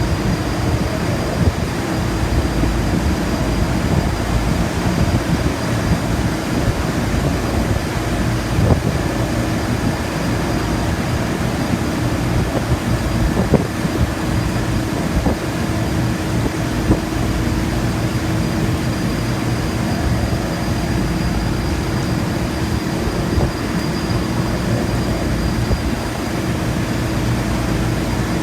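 Steady, loud rumbling noise on an offshore drilling rig, with a constant low hum and a faint high whine throughout and a few short knocks.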